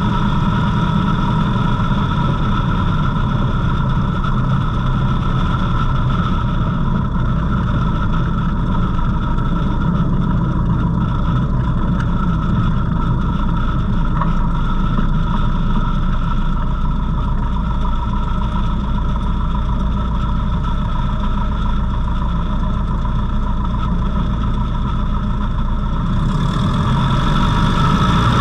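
Savage Outback light aircraft's engine and propeller running steadily as the plane rolls along the runway, heard from a camera mounted outside under the fuselage. It grows a little louder near the end.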